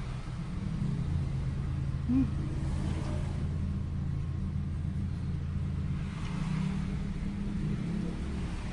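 Steady low rumble of a running machine, with a few low humming tones held under it.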